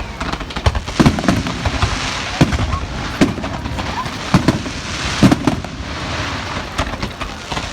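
Fireworks going off in a display: a rapid, irregular run of sharp bangs and crackles over a steady noisy rumble, with a few brief whistles.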